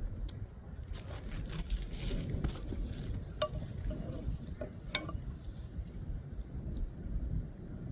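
Hand roofing tools handled on a shingle roof: a few soft knocks, then three light metallic clinks with a short ring, over a low steady rumble.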